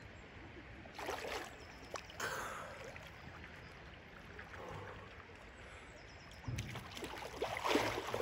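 Water splashing as a swimmer does breaststroke in a river, with short splashes about a second and two seconds in, then louder sloshing near the end as he stands up chest-deep.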